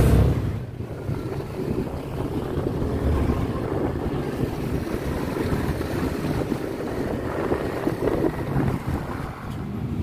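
Wind buffeting a phone microphone on a moving motorcycle, a steady fluttering rumble with engine and road noise underneath.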